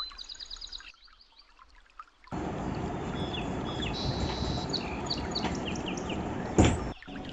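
Small birds chirping. About two seconds in, a steady loud hiss starts suddenly beneath them, and a single sharp knock sounds near the end.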